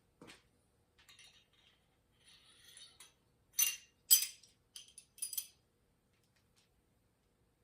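Small metal parts clinking and rattling as they are handled, with two sharp, ringing clinks a little past the middle as the loudest, followed by a few lighter clinks.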